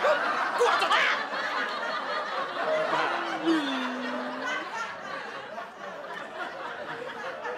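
Sitcom laugh track: a crowd laughing that swells about a second in and slowly dies away, with a short low pitched sound gliding down about three seconds in.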